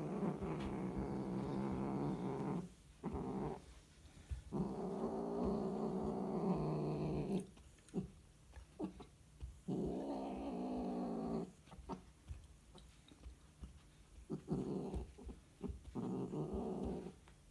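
Scottish fold cats mating: a cat gives a run of long, low, drawn-out yowls, each one to three seconds long, with pauses between.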